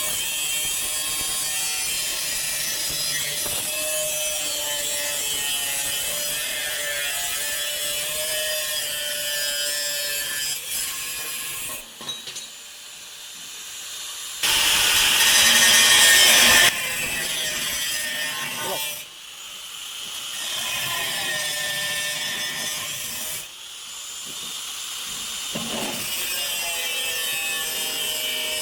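Sawing on a sheet-metal cable tray, cutting the notches for an elbow bend, with a few short pauses and a louder burst of about two seconds midway.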